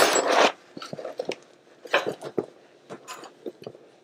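Rustling and scraping of a person sliding under a truck on cardboard laid over concrete, stopping about half a second in; then scattered light clicks and knocks from handling as he settles underneath.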